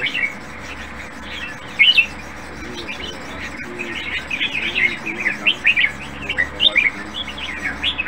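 Caged red-whiskered bulbul singing: short, bright chirping phrases, with a loud burst about two seconds in and a quick run of phrases through the second half.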